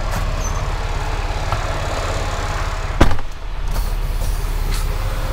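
Semi truck's diesel engine idling steadily, heard from inside the cab, with a single loud thump about three seconds in.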